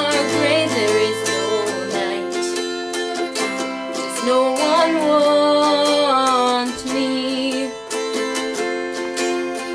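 Twelve-string acoustic guitar, capoed, strummed in steady chords.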